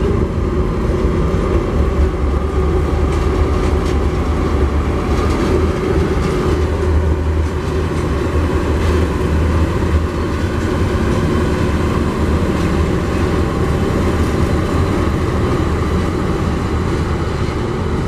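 Tasrail diesel locomotives TR16 and DQ 2008 running as they haul a container train over a bridge: a steady, loud low engine drone, with a few rail clicks from the wheels.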